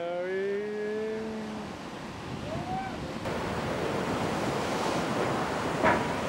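Ocean surf washing on the shore, with wind on the microphone. A voice sounds briefly at the start, and there is a short sharp knock near the end.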